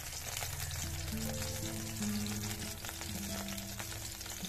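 Hot oil sizzling and crackling steadily in a kadai as green chillies fry and red chilli sauce goes in, with many small pops. Soft background music with held notes comes in about a second in.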